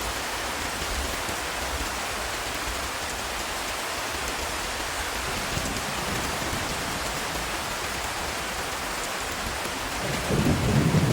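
Steady rain falling on hard ground. About ten seconds in, a deep roll of thunder begins and rises above the rain.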